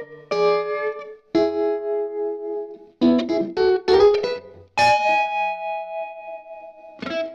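Unaccompanied electric guitar playing a slow blues melody: single picked notes and a quick run of notes, then one long note held and left ringing.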